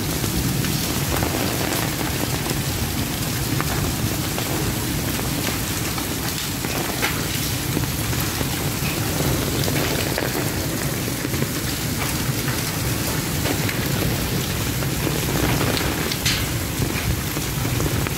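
Heavy rain pouring steadily and drumming on an umbrella overhead, with a few sharper taps standing out.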